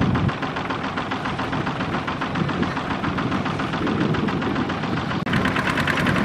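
Single-cylinder diesel engine of a two-wheel walking tractor running with a steady, even knocking beat as the tractor works with its drive wheel in mud. About five seconds in, the sound breaks off abruptly and the same engine comes back sharper and brighter.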